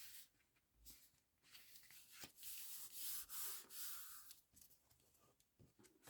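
Faint rubbing and rustling of paper and card being handled and pressed down, with a few light taps.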